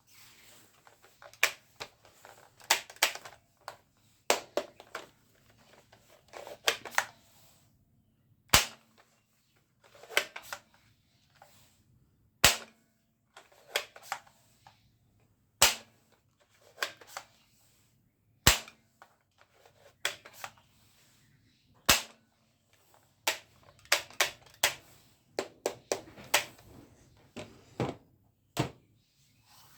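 Toy guns shooting and clicking: a string of sharp pops and smaller clicks throughout, with several louder single shots a few seconds apart in the middle.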